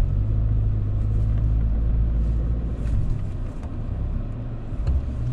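Truck engine and tyres droning low while driving over beach sand, heard from inside the cab; the drone eases a little about three seconds in.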